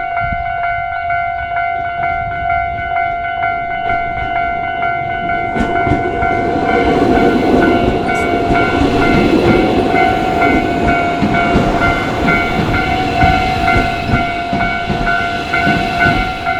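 Japanese railway crossing warning bell ringing in a steady repeating pattern, and from about six seconds in a train passing over the crossing, its wheels clacking over the rail joints.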